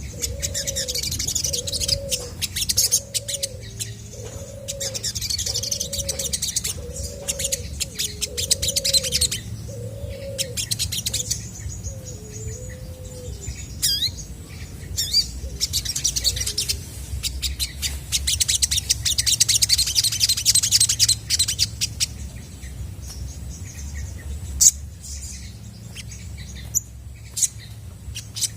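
Olive-backed sunbird singing: rapid high twittering chirps in long bursts. A lower hooting call repeats about once a second through the first ten seconds, over a steady low hum.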